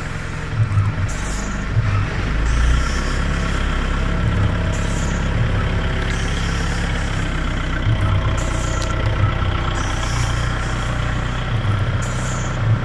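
CNC glass cutting machine running: a steady motor hum, with short hisses of air recurring every second or two from its pneumatic cutting heads as they score the glass.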